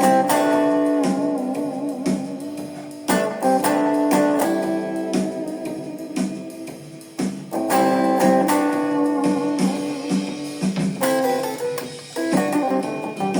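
Guitar playing: chords struck every few seconds and left to ring, with single notes picked in between.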